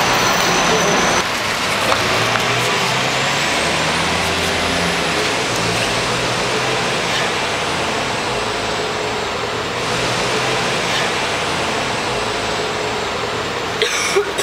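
A city bus driving past close by, then the steady noise of street traffic with engines rumbling.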